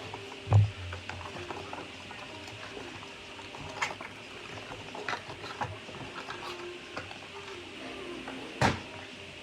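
Hands handling a keyboard's box and packaging during unboxing: scattered light clicks and rustles, with a heavy thump about half a second in and another near the end.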